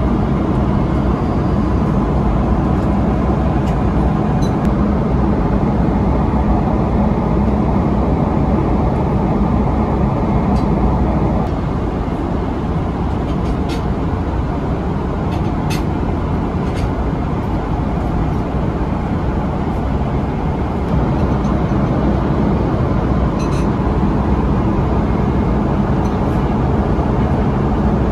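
Steady cabin noise of a Boeing 777-300ER airliner in flight: a constant low rush of engines and airflow, with a few faint clicks.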